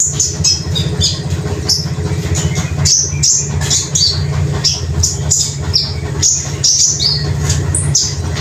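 A small caged songbird (a konin) singing a fast run of short, high chirps and sharp trill notes, over a steady low hum.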